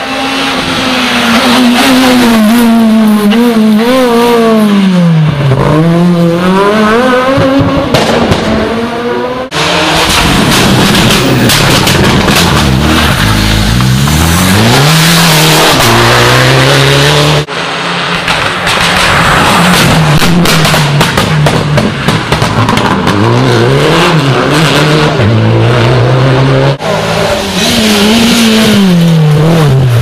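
Rally cars passing one after another on a tarmac special stage, engines at full throttle. Each engine note drops as the car brakes and downshifts into the bend, then climbs again through the gears as it powers away, with abrupt cuts from one car to the next.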